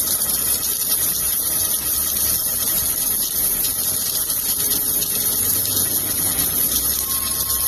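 Steady hissing, rushing noise from automatic submerged arc welding equipment at work, even in level throughout.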